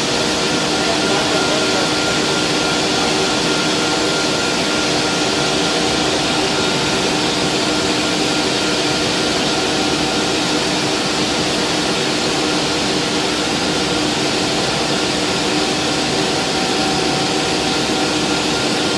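Steady mechanical drone of distillery machinery in a still house: an even rushing noise with a few constant hum tones running through it, unchanging throughout.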